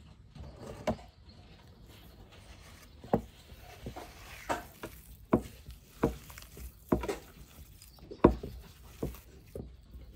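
Hands squeezing and kneading mashed sweet potato to work in sugar, in a ceramic bowl: soft squelches and dull knocks, about one a second and unevenly spaced.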